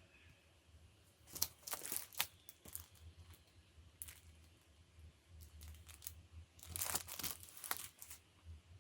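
Packaging being torn open and crinkled by hand, in several short bursts of tearing and rustling.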